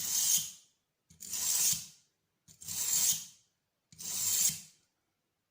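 Four strokes of a knife blade drawn across a Parkside combination whetstone, a gritty scrape on each pass, about one stroke every second and a half.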